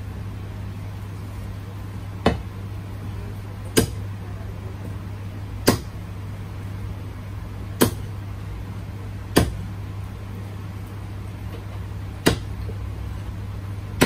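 Seven sharp knocks, irregularly spaced about one and a half to three seconds apart, over a steady low machine hum.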